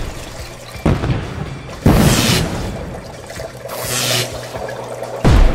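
Cartoon sound effects of three sudden booming hits, each dropping in pitch, with hissing swells between them, over background music.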